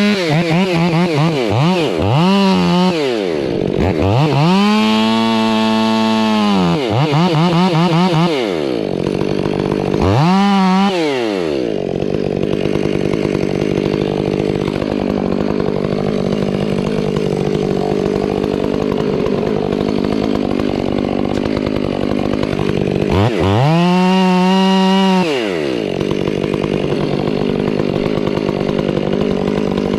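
Gasoline chainsaw revved up and let back down to idle several times, one rev held for about three seconds, then idling steadily for about ten seconds before one more rev near the end.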